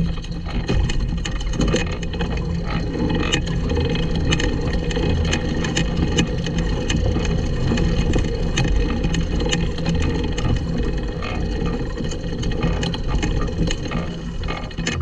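Small kart rolling over bumpy grass, heard from its own frame: a continuous low rumble with many small rattles and knocks from the frame and drivetrain as it goes over the ground.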